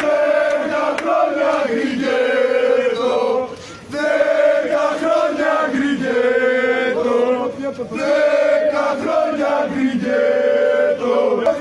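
Crowd of male football supporters chanting a song together, in sung phrases with short breaks about four and eight seconds in.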